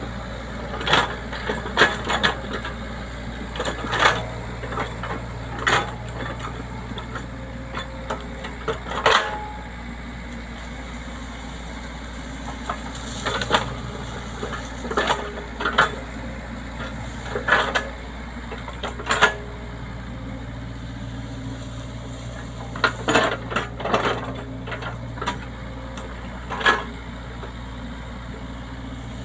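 Excavator engine running steadily, with frequent irregular sharp clanks and knocks from the machine at work.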